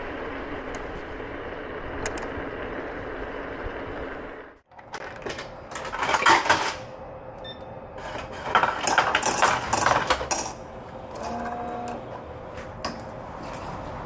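Egret X electric scooter rolling over gravel with a steady rumble that cuts off abruptly about four and a half seconds in. Then two bursts of irregular clattering and knocking, and a brief steady tone near the end.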